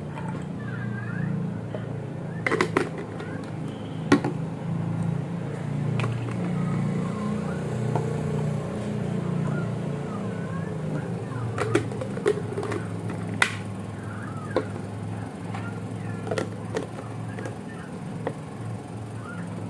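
Electric breast pump running with a steady low hum, with several sharp clicks and knocks from handling the pump.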